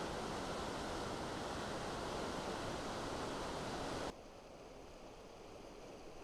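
Cheoah River whitewater rushing through rapids at high recreational-release flow, a steady loud rush. About four seconds in it cuts suddenly to a much fainter trickle and hiss of the river at its normal low flow.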